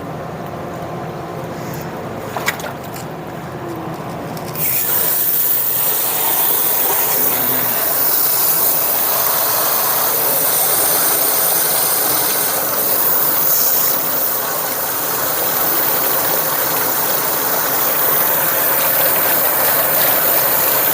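Water sprayed hard into a flood-muddied gas furnace to wash the mud out, starting suddenly about four and a half seconds in as a loud, steady hiss and spatter. Before that there is a quieter sound with a couple of sharp clicks.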